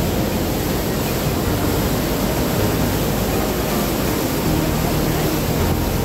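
The Rhine Falls pouring and churning: a steady, loud rush of falling water.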